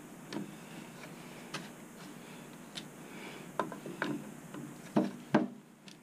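Metal hand tool clicking against the nut that holds a PTAC fan blade on the motor shaft as the nut is tightened: a scatter of short, irregular metallic clicks, the two loudest about five seconds in.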